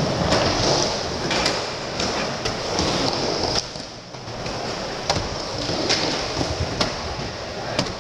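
Skateboard wheels rolling across a vert ramp: a steady rushing rumble broken by several sharp clacks of the board, dipping briefly about four seconds in as the skater reaches the lip.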